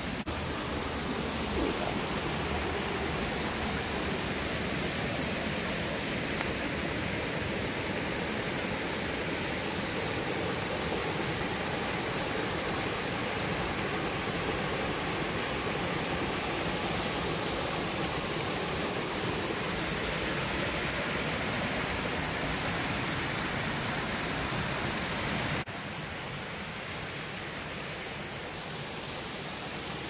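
Steady hiss of water running over rock from small waterfall cascades. It drops suddenly to a lower level about four seconds before the end.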